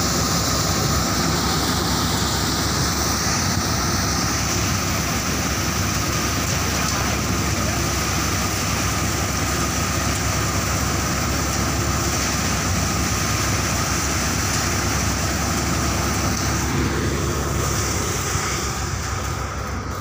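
Tractor-driven Surya paddy thresher running steadily as paddy is threshed, a constant machine drone with steady tones, easing a little near the end.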